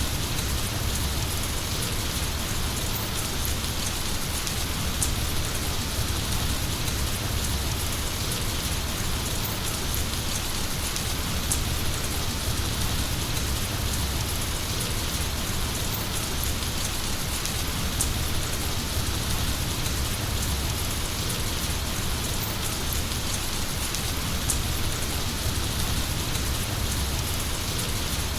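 Heavy rain falling steadily, with now and then a sharper drop close by.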